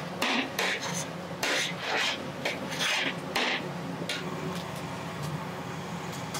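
Metal spatula scraping and pushing pav bhaji across a large flat steel griddle: about six rasping strokes over the first three and a half seconds, then only a few faint clicks. A steady low hum runs underneath.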